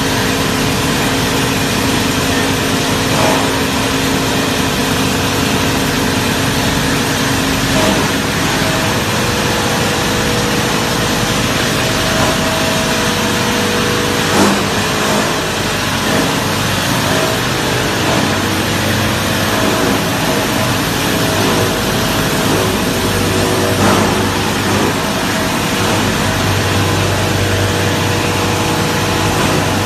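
QD-600S copper wire granulator running, a steady, loud machine noise with several constant hum tones and a few short knocks.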